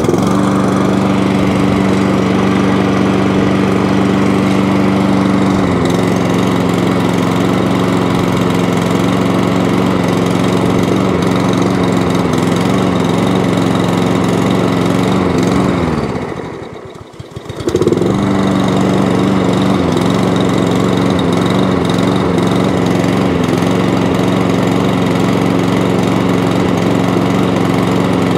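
Mountfield lawn mower's SV200 petrol engine, just started, runs steadily with its speed dropping slightly about six seconds in. About sixteen seconds in it slows and bogs almost to stalling, then picks back up and runs on steadily. The engine hunts and surges, which the owner puts down to the carburettor; it only runs well on choke.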